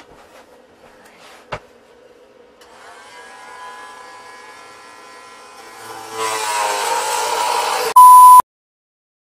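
Cordless oscillating multi-tool starting up with a steady whine, growing much louder and buzzier about six seconds in as the blade works. It is cut off by a loud, short single-pitch test-pattern beep and then silence.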